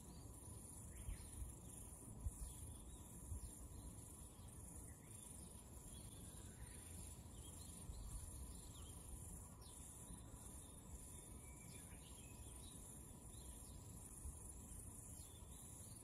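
Faint outdoor ambience: a steady, high-pitched insect chirring over a low rumble, with a few faint, brief bird calls.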